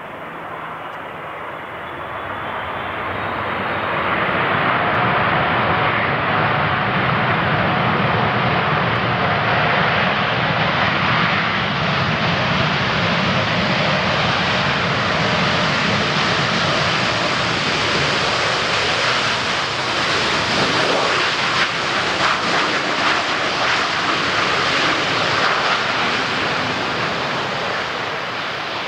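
Boeing 787-8 Dreamliner's jet engines roaring during the landing rollout just after touchdown. The roar swells about three seconds in, holds loud and steady, and fades near the end.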